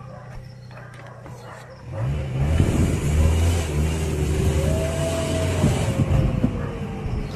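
A motor vehicle drives past close by on the street, its engine note rising as it arrives about two seconds in and staying loud. Over the last few seconds a single long dog howl rises and slowly falls.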